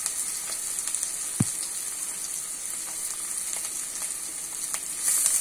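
Chopped red onion and garlic frying in sesame oil in a kadai: a steady sizzle with light crackles, growing louder near the end. One soft knock about a second and a half in.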